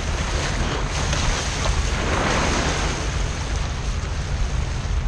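Water rushing and splashing against a sea kayak's hull as it surfs through waves, with heavy wind rumble on the microphone. The rush of water swells about two seconds in.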